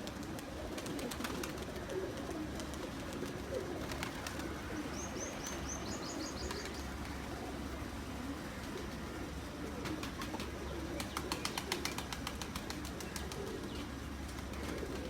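Domestic high-flyer pigeons cooing continuously in a low murmur. About five seconds in, a short run of high chirps from another bird, and about ten seconds in, a quick burst of rapid clicks.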